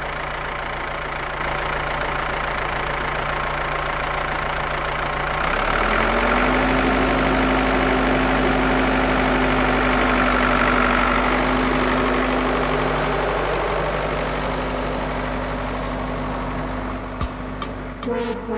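A small motor running steadily; about five seconds in its pitch steps up and it gets louder, then it holds. A few sharp clicks near the end.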